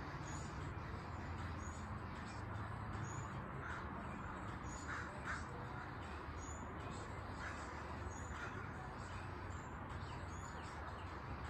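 A bird calling a few short times over a low steady background hum.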